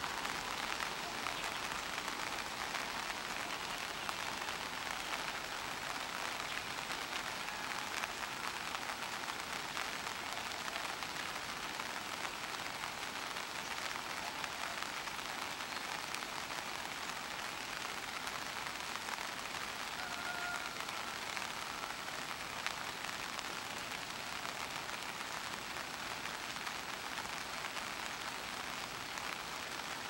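Steady, even rain-like hiss that does not change in level.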